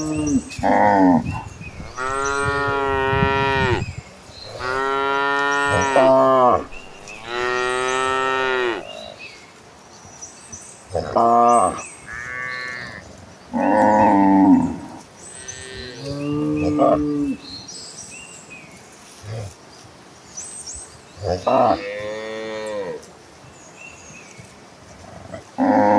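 Cattle mooing, several calls one after another: three long moos close together at first, then shorter moos spaced out with quiet gaps between them.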